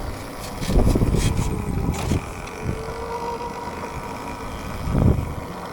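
Vehicle riding noise: wind buffeting the microphone in low gusts, strongest about a second in and again near the end, over a steady high whine.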